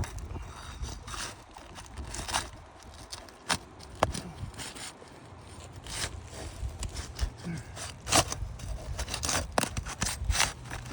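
Asphalt shingles being handled and pried up: irregular sharp scrapes, crackles and clicks as a shingle tab is lifted off its sealant strip to check it for delamination.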